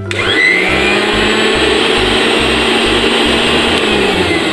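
Motor base of a Promix blender, jar removed, switched on: it spins up quickly with a rising whine and then runs steadily at full speed, starting to slow near the end. It runs normally again with its circuit breaker reset.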